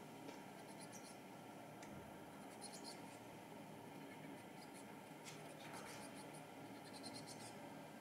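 Near silence, with faint high-pitched ticks in a few short clusters over a low, steady background hush.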